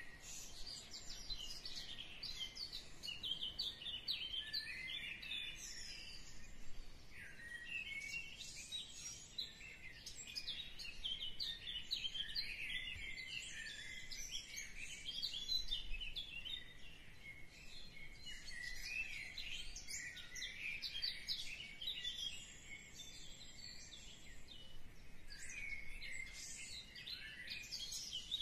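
Many small birds chirping at once: a dense, continuous chorus of short, high chirps and quick twitters.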